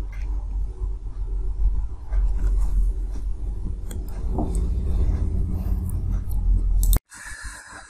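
Steady low hum of room and microphone background noise with a few faint clicks, cutting off abruptly about seven seconds in where the recording breaks.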